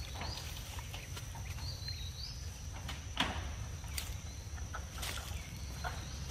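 Outdoor ambience: a steady low rumble and a thin, steady high whine, with a few short, high bird chirps and scattered sharp clicks and rustles, the loudest a little past three seconds in.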